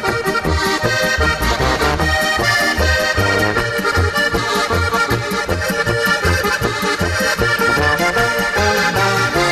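Accordion-led Bavarian-style folk dance music with a steady bass beat.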